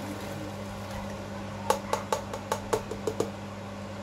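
About nine quick, sharp taps starting about a second and a half in: a plastic tub knocked against the rim of a stainless steel cooking pot to shake out the last of a ground crayfish, pepper and onion mix.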